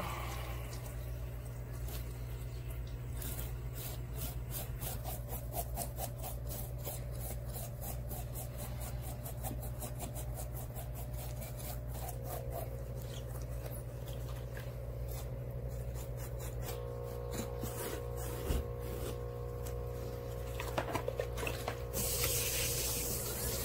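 Kitchen knife scraping the scales off a whole hiramasa (yellowtail amberjack) on a wooden board, in many quick rasping strokes. About 22 seconds in, water from a hose spray nozzle starts hissing onto the fish, rinsing the loosened scales away. A steady low hum runs underneath.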